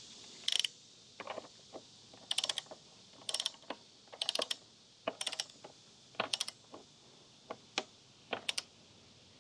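Click-type torque wrench set to 72 foot-pounds being ratcheted on a motorcycle rear axle nut: short runs of rapid pawl clicks, about one run a second, as the handle is swung back for each stroke.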